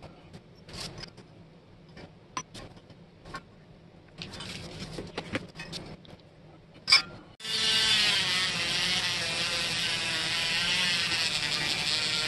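Small metal parts clicking and scraping as they are handled on the cast-iron label paster, with one sharp click just before the change. About seven seconds in, a handheld rotary tool starts with a loud, steady, high whir, its small brush wheel working on the metal roller.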